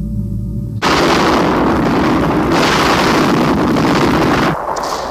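A low drone cuts off about a second in to a sudden, loud, sustained rush of rumbling noise: the blast of a volcanic eruption. Near the end the rumble drops away, leaving a thinner hiss like TV static.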